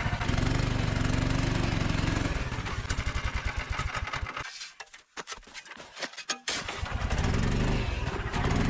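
Snow Dog tracked snow machine's small engine running steadily, then slowing to a few uneven firing beats about four and a half seconds in before picking back up to a steady run.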